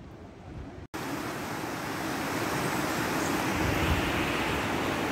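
Rushing stream: a steady, even noise that starts abruptly about a second in, after a short quieter stretch.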